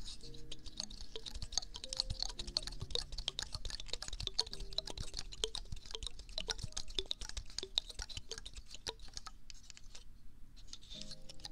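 Pine cone rubbed against the ear of a binaural ASMR microphone, close up: a dense, crackling run of many small clicks as the scales catch and flick. It thins out briefly near the end.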